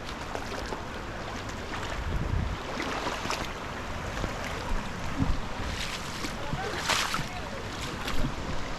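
Steady rush of a waterfall, with wind gusting on the microphone and a few short knocks.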